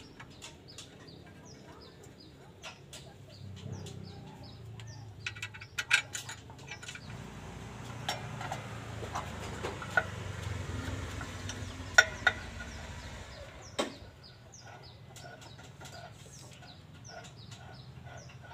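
Chickens clucking in the background, with a few sharp metal clinks from work on a car's new clutch pressure plate, the loudest about twelve seconds in.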